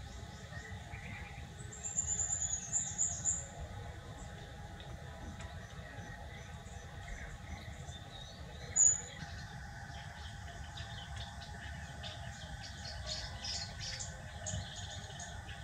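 Small birds chirping: a run of high chirps about two seconds in, one short loud chirp near nine seconds, then scattered chirps later on, over a steady low hum.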